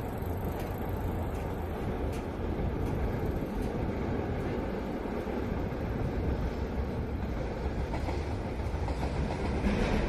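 Electric commuter train running past on the multi-track JR line, a steady rumble of wheels on rails.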